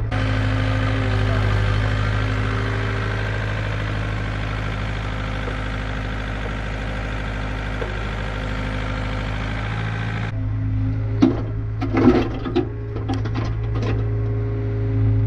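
Takeuchi TB153 mini excavator's diesel engine running steadily under hydraulic load as the arm carries a large rock in its bucket. A few sharp knocks come in the last few seconds.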